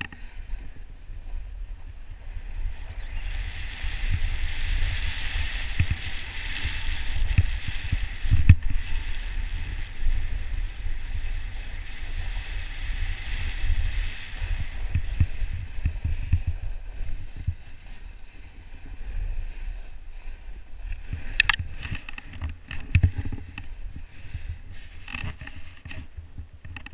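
Snowboard sliding down a snow slope: the base and edges hiss on the snow, over a low rumble of wind buffeting the camera microphone. There are a few sharp knocks near the end.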